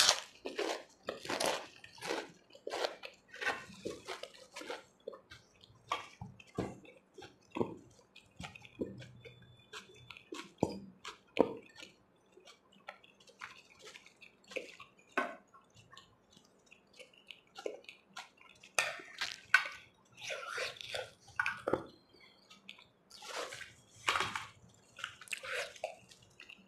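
Close-up eating sounds: wet, crunchy chewing with a steady rhythm for the first few seconds, then scattered wet clicks and squishes as rice is mixed into chickpea curry by hand.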